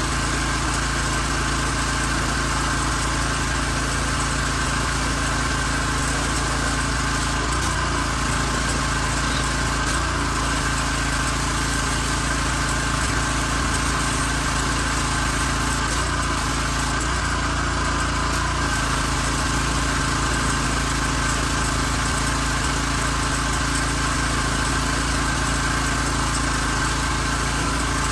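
Gas-engine pressure washer running steadily at a constant pitch, with the hiss of the water spray from the wand.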